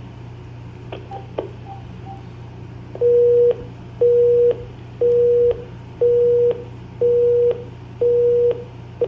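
Telephone busy signal recorded onto an answering-machine message after the caller hangs up: a couple of hang-up clicks about a second in, then a steady low tone pulsing half a second on, half a second off, six times, played back through the answering machine's speaker.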